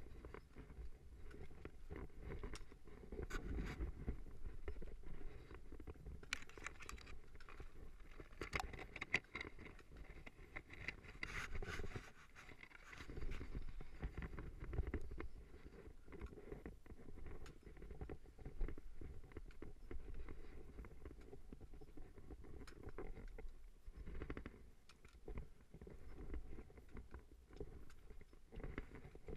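Scraping, rustling and scattered clicks from a climber sliding down rock on his seat: trousers and gloves rubbing on the stone and a trekking pole tapping against it, picked up by a body-worn GoPro Hero3, over a low wind rumble on the microphone.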